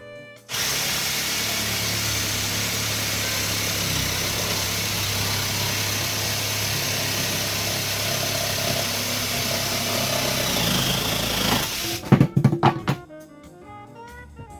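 A loud electric power saw cutting through pine board. It runs steadily for about eleven seconds, then stops, followed by a few knocks of wood.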